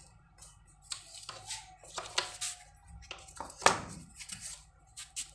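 Faint scattered scrapes and knocks of a floor squeegee being picked up and handled, with the loudest knock about three and a half seconds in, over a faint steady tone.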